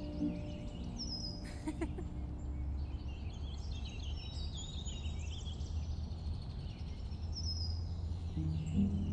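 Outdoor ambience of several small birds chirping and trilling over a low steady rumble, with a brief sharp rustle or click about one and a half seconds in. Music comes back in near the end.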